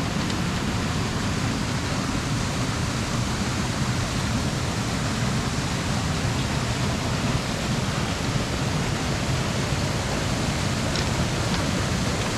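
Steady rush of falling water from a creek waterfall that drops out of an artificial trench.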